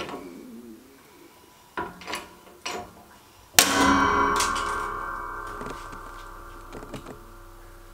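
A few small cracks from a 3D-printed plastic tubing bender loaded in a shop press, then, about three and a half seconds in, one loud sharp crack as a printed part breaks under the load. A metallic ringing follows and fades over about three seconds.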